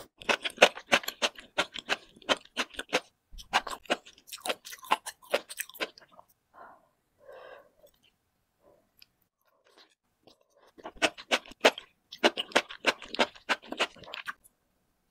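Enoki mushrooms being chewed close to the microphone: quick, wet, crunchy bites in two long runs, with a few quieter seconds in between.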